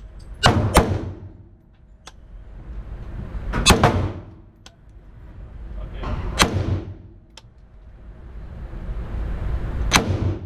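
Five gunshots echoing in an indoor shooting range: two in quick succession about half a second in, then single shots near 4 s, about 6.5 s and at the end. A rising hiss builds up before each of the last three shots.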